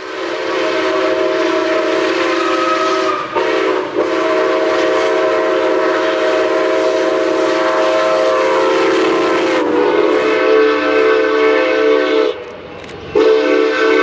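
Six-chime steam locomotive whistles blowing chords in long blasts broken by short gaps. First comes Southern Railway #4501's Central of Georgia six-chime whistle. About a second before the end, after a brief dip, a new blast starts from ATSF #3751's Santa Fe six-chime whistle.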